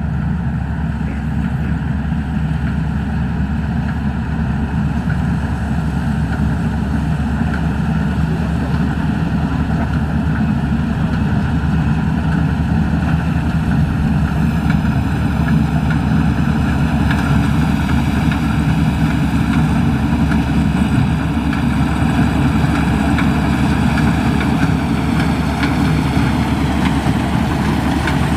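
Maxxi Bimo Xtreme combine harvester running steadily under harvesting load, with a continuous engine drone. It grows a little louder over the first half as it comes closer.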